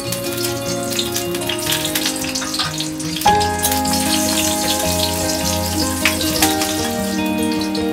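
Dried red and green chilies sizzling and crackling in hot oil in an aluminium kadai, over background music.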